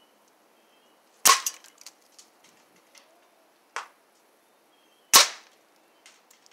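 Three sharp cracks from a Benjamin Marauder .177 pre-charged pneumatic air rifle firing pellets into a wooden target board, the middle crack quieter than the other two, each of the loud ones followed by a few faint ticks.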